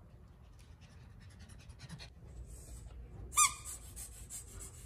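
Yellow rubber bee squeaky toy squeezed once about three and a half seconds in, giving a short high-pitched squeak, with faint clicking before it.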